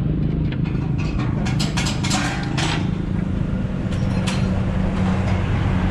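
A motorcycle engine idles steadily. A cluster of sharp metallic clicks or taps comes about one and a half to three seconds in, and another about four seconds in.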